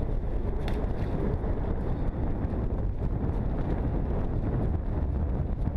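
Wind buffeting the camera's microphone: a steady, heavy rumble, with a single brief click about a second in.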